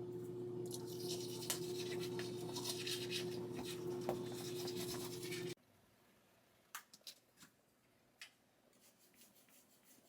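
A steady hum with scratching and rubbing noise over it, cutting off abruptly about five and a half seconds in; then near silence with a few faint clicks.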